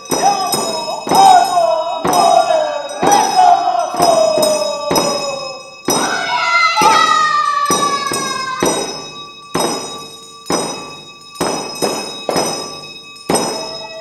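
Tibetan Reba dance music: hand drums struck in a steady beat under high ringing bells, with a long pitched call that slides downward twice in the first eight seconds.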